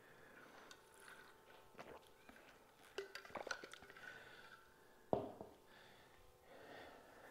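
Faint handling of a plastic water bottle after drinking: a few light clicks, then a single thump about five seconds in as the bottle is set down on the floor.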